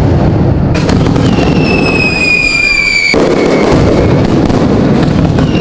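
Loud, dense crackling noise with a high whistle that slowly falls in pitch from about a second in until it cuts off suddenly around three seconds in; a second whistle starts near the end.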